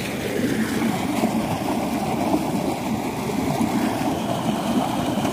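River water gushing out of a large pipe into a concrete tank, a steady splashing rush of falling water.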